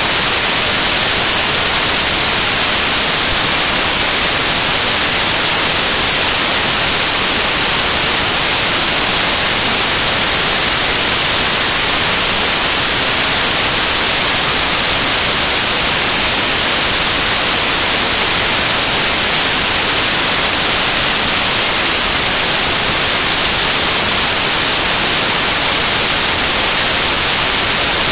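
Loud, steady hiss of static, an even white noise strongest in the treble with no voice coming through: an audio fault in place of the recorded sound.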